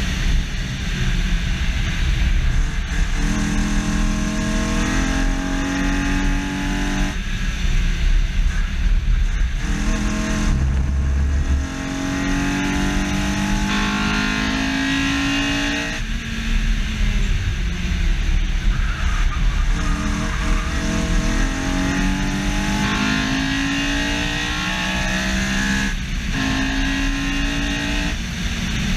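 Honda S2000's F20C four-cylinder engine pulling hard on track. It revs up through the gears several times, each rise breaking off at a shift. Heavy wind and road rumble run under it on the bumper-mounted camera.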